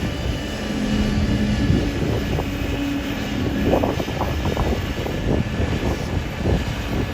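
Heavy diesel machinery running steadily: a Kobelco SK260 LG excavator at work, with a steady low tone over the engine for a couple of seconds near the start and a few knocks about four seconds in.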